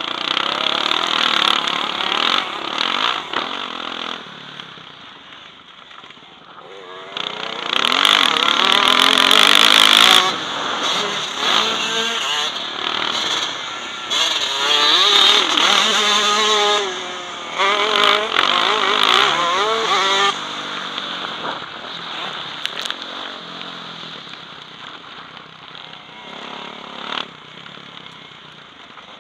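Motocross bike engine revving hard and dropping back again and again as the rider races the track, its pitch climbing and falling with each burst of throttle. It is heard from a helmet camera, with a rushing noise over it, loudest in the middle stretch and easing toward the end.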